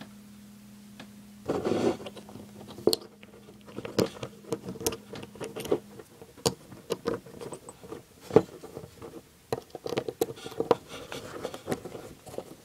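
Small clicks and scrapes of hands fitting the cover back onto a weed whacker carburetor and handling its small parts. A brief louder rustle comes about two seconds in, then a run of irregular light ticks.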